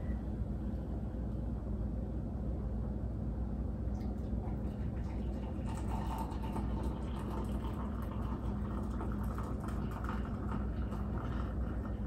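Hot water poured from a stovetop kettle into a MyJo single-cup coffee maker, a steady liquid stream starting about five seconds in, over a constant low hum.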